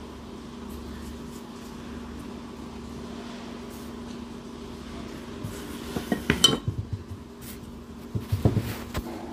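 Kitchen handling clatter over a steady low hum: a burst of knocks on a stainless-steel plate with a brief metallic ring a little past halfway, then duller knocks near the end as dough is set and pressed on a wooden rolling board.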